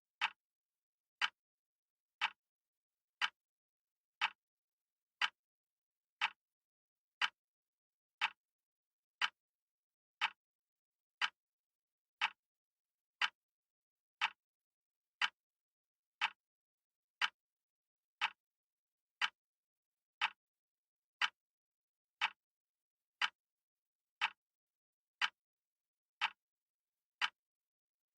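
Clock-style tick sound effect of a countdown timer, one short sharp tick every second, evenly spaced, with dead silence between ticks.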